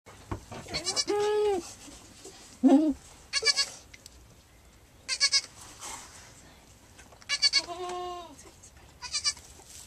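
Goats bleating around a newborn kid: three short calls, one lower-pitched than the others, from a newly kidded doe talking to her kid. Short bursts of rapid clicking come between the calls.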